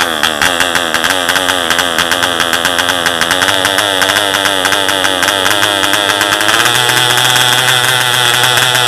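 M.E. Heron 1 cc model marine diesel engine running on the bench, with a fast pulsing beat and a wavering pitch. About six and a half seconds in, it smooths into a steadier, even buzz.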